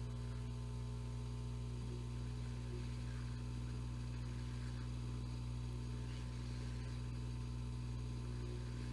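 Hot air rework gun running steadily: a constant low electrical hum with faint airflow hiss, heating the lead-free solder of a connector so it can be lifted off the board.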